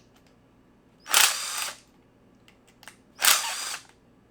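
Hitachi cordless driver with a T20 star bit running in reverse in two short bursts, about two seconds apart, backing out the screws that hold a string trimmer's gearbox head.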